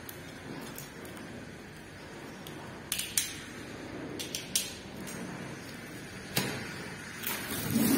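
Packing tape on a cardboard box being cut with a knife and pulled away: a few short, sharp scrapes and rips, the loudest about three seconds in and again about six seconds in.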